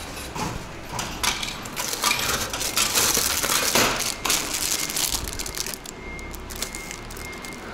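Plastic-wrapped pastry being pulled out of a vending machine's pickup flap: the wrapper crinkles and rustles, with clicks and knocks from the flap, for about four seconds, after which it is quieter.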